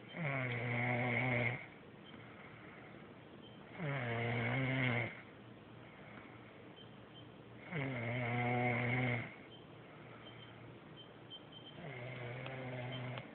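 Snoring: four long, evenly pitched snores about four seconds apart, each sliding down briefly at its start, the last one weaker.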